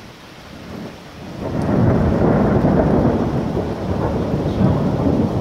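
Thunder rumbling, swelling up about a second and a half in and rolling on steadily, over a steady hiss of rain.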